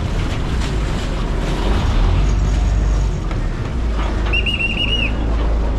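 A river ferry's engine rumbles steadily as the boat holds at the pier. About four seconds in comes a short trilled blast on a pea whistle, the kind Chao Phraya boat crews blow to signal the helmsman while docking.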